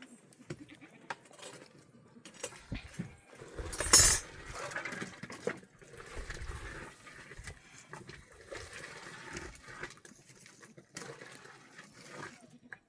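Scattered light clinks and knocks, with one loud sharp knock about four seconds in.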